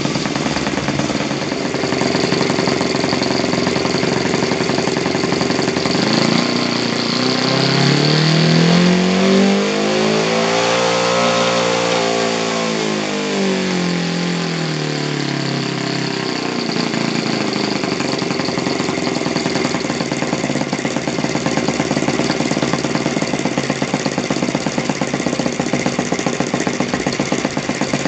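Rebuilt Yamada FZ 53 supercharged four-stroke RC model engine running on a test bench and turning its propeller, on its first run after the rebuild and not yet adjusted. About six seconds in it is revved up, peaking around eleven seconds, then drops back to a steady lower speed by about sixteen seconds.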